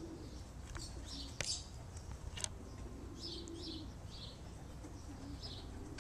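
Racing pigeons cooing in short repeated low notes, with high bird chirps running over them. A couple of sharp clicks come in the first half.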